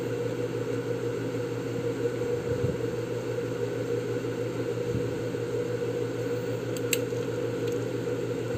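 Steady low mechanical hum or whir, unchanging throughout, with a single short click about seven seconds in.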